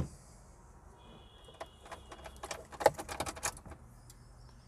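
A quick run of sharp clicks and light rattles as the ignition key with its keyring is turned in the Maruti Alto 800's ignition switch to switch the ignition on, with a faint steady high tone for about a second and a half before the clicks. The engine is not yet running.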